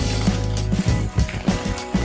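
Background music with a steady low beat and held tones.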